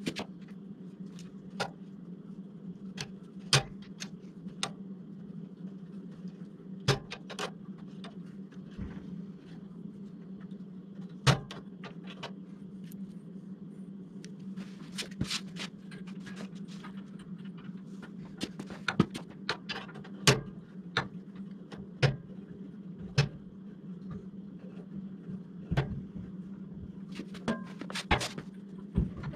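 Irregular sharp metallic knocks and clinks from a big-block engine hanging on an engine hoist chain as it is shifted and tilted by hand, more frequent in the second half, over a steady low hum.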